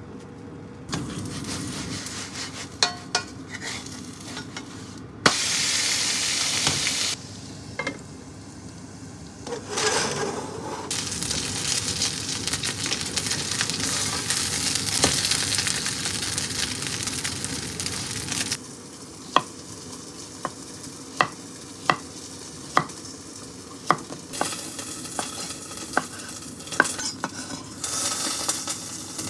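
Cabbage-and-pork-belly okonomiyaki sizzling and frying in an iron pan, stirred and turned with a wooden spatula. In the second half come sharp, separate knocks, a little more than one a second.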